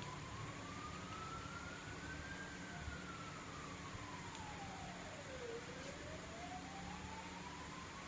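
A siren sounding a slow wail: its single tone climbs for about two and a half seconds, falls for about three, then climbs again.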